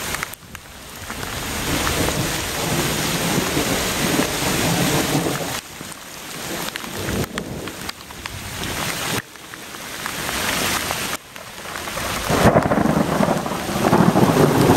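A thunderstorm: heavy rain pouring down on the lake and trees, with low thunder rumbling and swelling louder twice. The sound breaks off and starts again abruptly several times.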